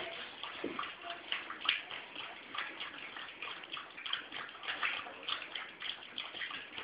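Miniature pinscher lapping from a bowl: a quick, uneven run of faint wet clicks, a few a second.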